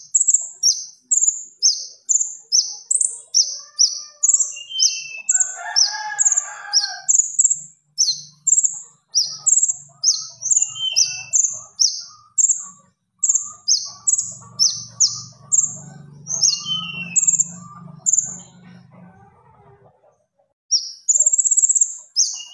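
Konin songbird singing: a rapid string of sharp, high notes, about two a second. It breaks off for a second or so near the end, then starts again.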